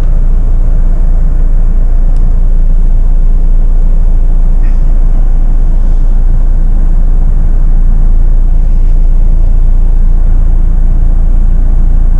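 Jeep Meridian's 2.0-litre diesel engine and drivetrain running as the SUV crawls slowly over articulation bumps with wheels lifting: a loud, steady low rumble.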